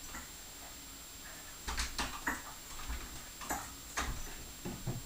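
A small dog rummaging in a fridge: irregular light clicks and knocks, about nine of them, starting a little under two seconds in.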